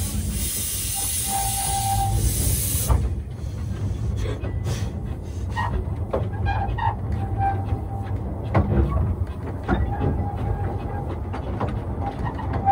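Narrow-gauge steam locomotive and carriage on the move: a loud hiss of steam from the engine's cylinders stops about three seconds in, leaving the carriage rumbling over the rails with scattered clicks from the track and several short squeals from the wheels.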